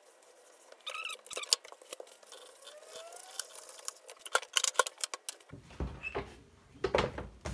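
Handling noise at a wooden workbench: hands moving and pressing a vinyl door panel and a cloth, with scattered clicks, taps and a few faint squeaks, and some duller knocks near the end.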